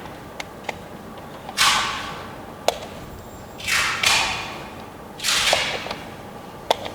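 Oxygen concentrator running: sharp valve clicks and a hiss of released air about every two seconds, fading away each time as the valves cycle.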